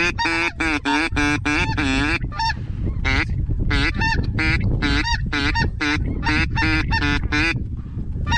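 Snow geese calling: a fast run of high, yelping honks, several a second, with two short breaks. A low steady rumble sits underneath.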